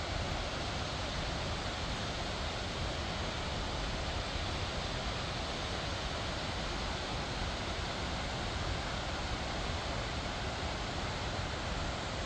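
Steady rushing of a waterfall and mountain stream, an even, unbroken noise with no separate events.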